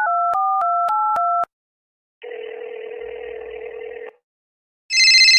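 Telephone call sound effects: a quick run of paired keypad dialling beeps in the first second and a half, then a steady ringback tone heard through the line for about two seconds. Near the end a loud, high electronic phone ringtone starts.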